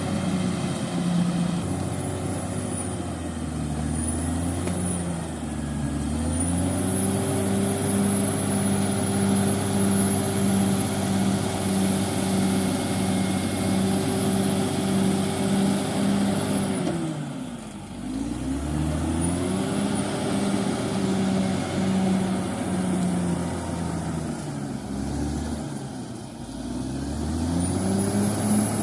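CAT D6R XL bulldozer's diesel engine working, its speed rising and falling several times, dropping furthest about two-thirds of the way through and again near the end before climbing back. A high whine rises and falls with the engine.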